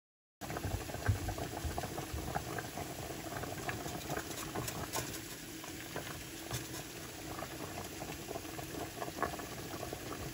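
Pork hock boiling in a pot of water, bubbling with many small pops, with a soft bump about a second in.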